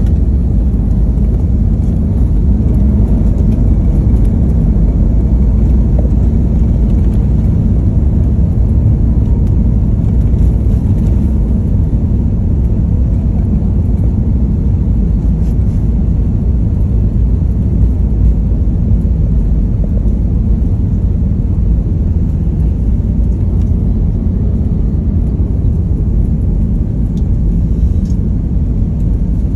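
Steady low rumble of an airliner cabin while the plane rolls on the ground, engine noise mixed with the rumble of the wheels.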